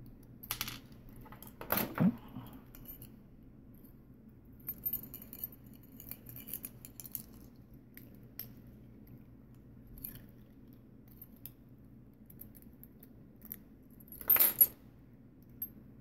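Small metallic clicks and clinks of a brass padlock, its key and a small tool being handled and worked on, with a few louder clacks about half a second in, near two seconds in and near the end.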